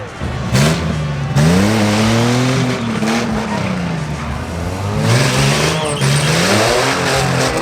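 Car engines accelerating hard in a drag race. The engine pitch climbs and falls, and a sudden louder surge comes about a second and a half in.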